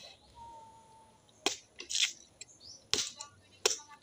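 Bolo knife chopping into the husk of a young green coconut: four sharp, separate chops, starting about a second and a half in.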